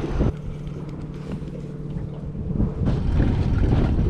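Small boat motor running with a steady low hum, overlaid by wind and water noise on the microphone that grows louder about three seconds in.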